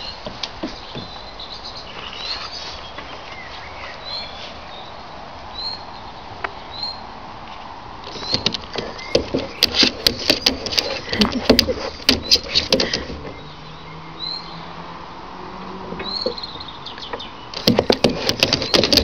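A boxer puppy's claws clicking and scrabbling on a plastic children's slide, in two bursts: one for several seconds about halfway in and one near the end. A bird gives short repeated chirps in the background.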